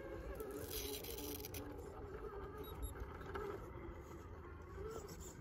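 Electric RC rock crawler's motor and gears whining at crawling speed as it climbs rock, the pitch wavering with the throttle. A brief scrape of the truck on the rock about a second in.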